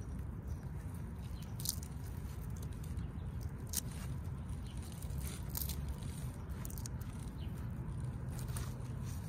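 Pumpkin vine and leaves rustling and crackling in short spurts as hands move and turn a pumpkin on the vine, over a steady low outdoor rumble.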